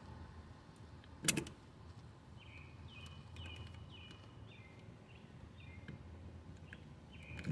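Metal tweezers working a plastic filter out of a brake fluid reservoir: one sharp click about a second in as they knock against the plastic, then quiet scraping. Throughout, a bird chirps repeatedly in short falling notes, about two a second.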